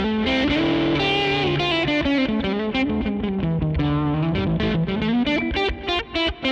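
Electric guitar through the NUX MG-300's amp simulation, set to a low-gain overdrive with no separate distortion pedal, plus digital delay and reverb. It plays a lead phrase of picked notes with long held notes whose pitch slides down and back up.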